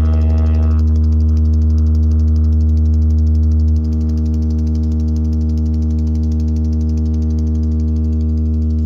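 A deep bass note held steadily through a DJ speaker system, with a fine rapid buzzing pulse on it, dropping slightly in level about four seconds in.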